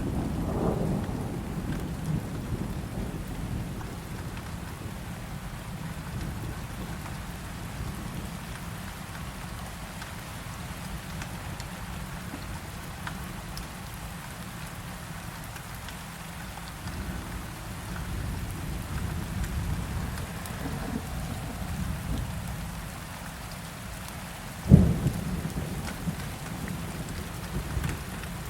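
Steady heavy rain with a low rumble of thunder, heavier at the start. A sudden loud crack near the end.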